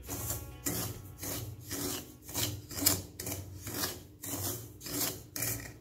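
A wooden spatula scraping and stirring dry semolina (rava) in a kadai, in quick, regular raspy strokes about two to three a second: the semolina being dry-roasted on low heat.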